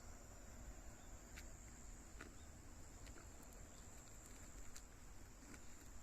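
Faint outdoor quiet with a steady high insect trill, a low rumble and a few faint ticks.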